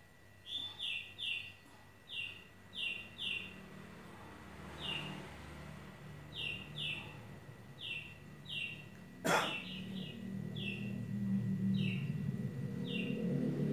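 A small bird chirping over and over, with short falling chirps, often two in quick succession, about once a second. A single sharp knock comes about nine seconds in, and a low rumble builds toward the end.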